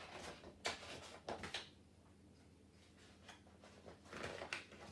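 Faint rustling of a picture book's paper pages being handled and turned: a few short, soft swishes, the longest near the end.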